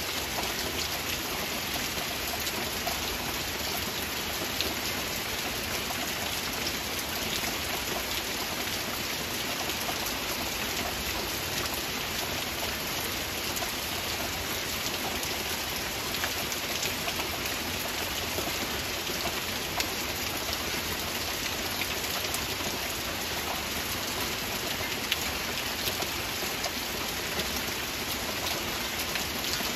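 Steady heavy rain falling, an even hiss with scattered droplet ticks and a few slightly louder drops.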